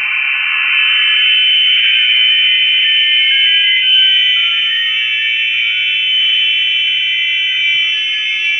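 Shortwave radio receiver putting out an unidentified signal: a loud, steady cluster of many high tones over hiss. Its low end thins out upward in the first second or so, then it holds unchanged.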